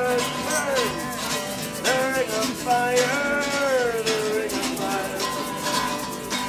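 Guitar strummed in a steady rhythm by a street musician, with a voice gliding in pitch over it.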